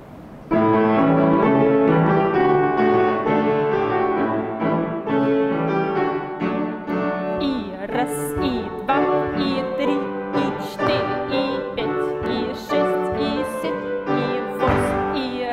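Piano dance accompaniment starts about half a second in and plays on steadily. From about eight seconds in, sharp knocks sound over it at uneven intervals.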